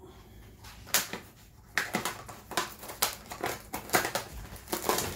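Knife cutting through and pulling back the plastic film on a tray of mince: a run of sharp crinkling crackles, starting about a second in.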